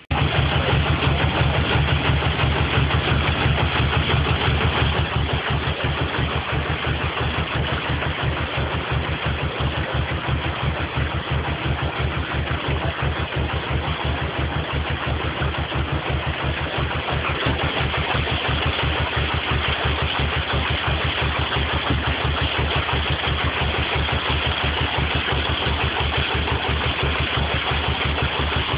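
Narrowboat's diesel engine running steadily, with an even beat.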